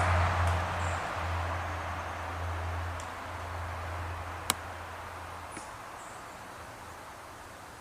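A motor vehicle's engine hum and noise fading steadily away over about five seconds, leaving quiet outdoor ambience with a few faint high chirps. A single sharp click comes about four and a half seconds in.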